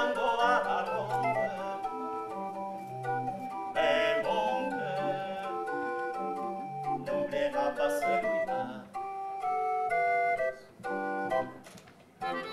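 Instrumental music led by a sustained organ-like keyboard sound, playing a melody and held chords over a bass line. It goes quieter for a moment near the end.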